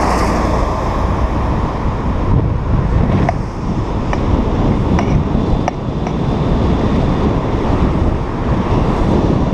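Wind buffeting the microphone of a camera on a moving vehicle, a steady low rumble with road noise under it and a couple of faint clicks partway through.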